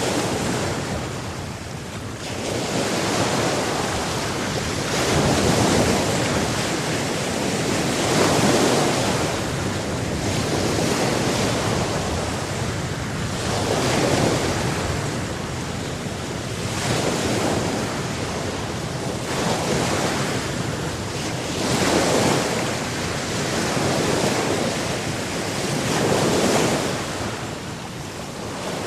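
Sea surf: waves breaking and washing on the shore in a continuous rush that swells and ebbs every few seconds, with some wind.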